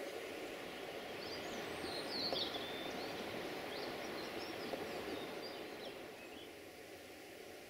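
Songbirds chirping in short bursts over a steady, faint rushing background noise, which eases a little about six seconds in.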